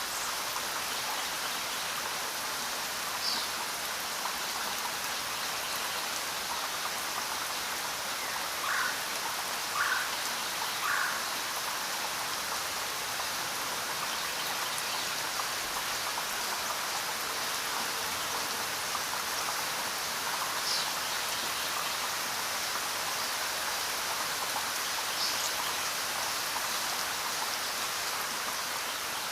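Steady rain falling, an even hiss of many drops. A few brief higher sounds stand out over it, three in quick succession around the middle.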